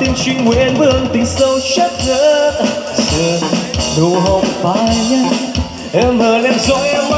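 A male singer singing a slow pop song live into a microphone, backed by a live band of keyboard and guitars over a steady beat.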